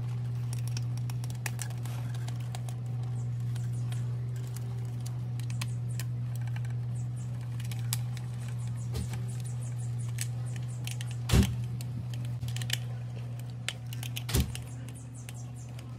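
Hand screwdriver turning out small screws from a singing fish's plastic housing: light clicks and scrapes of metal on plastic, with two sharper knocks, one about eleven seconds in and one near the end, over a steady low hum.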